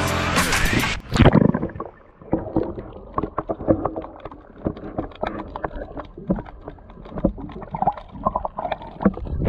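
Background music cuts off about a second in, followed by a splash. Then comes muffled sound from a camera held underwater: gurgling and rumble with many small clicks and knocks.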